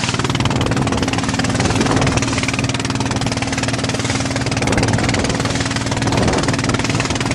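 Small fishing boat's engine running steadily at an even pitch.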